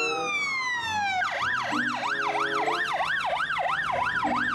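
Electronic siren: a long falling wail, then from just over a second in a fast up-and-down yelp, about three cycles a second.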